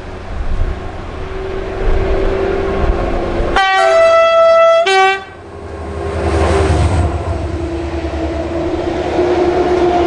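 Four SNCF CC 72000 diesel locomotives working together, their engines running with a steady drone as they approach and pass close by. A loud horn blast of about a second and a half comes about three and a half seconds in and cuts off abruptly.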